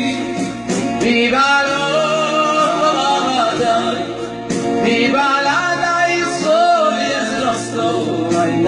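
A man singing into a handheld microphone, his melody sliding between notes.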